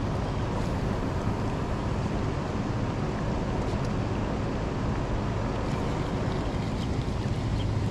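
A boat's motor running steadily under way, with wind on the microphone.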